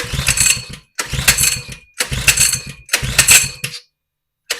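Coleman 100cc minibike's small single-cylinder engine being pull-started over and over, about once a second. Each pull cranks it over briefly without it catching.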